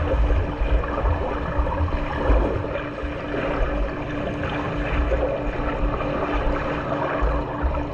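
Swimming-pool water noise: continuous churning and splashing of water, with a steady hum and irregular low rumbling.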